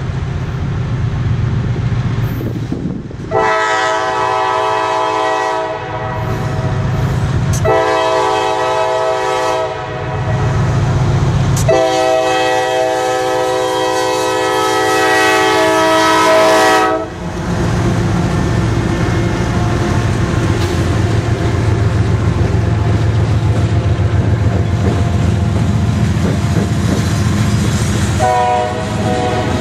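CSX coal train led by GE AC6000CW diesel locomotives sounding its multi-chime air horn in three long blasts as it approaches and passes, the last about five seconds long. The blasts are followed by the steady rumble of the passing engines and loaded coal hoppers rolling on the rails, with a short horn toot near the end.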